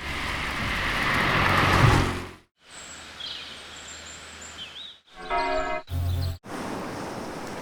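Sound-design effects cut hard one after another. A rushing noise swells for about two seconds and stops abruptly. Quieter outdoor ambience with bird chirps follows, then a brief pitched tone, a short low thud and a steady hiss.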